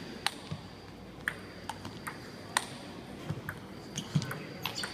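Table tennis ball struck back and forth in a rally: an irregular series of sharp clicks of the celluloid ball on paddles and table.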